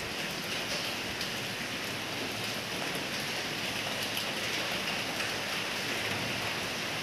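Steady hissing background noise, with a few faint ticks of a marker writing on a whiteboard.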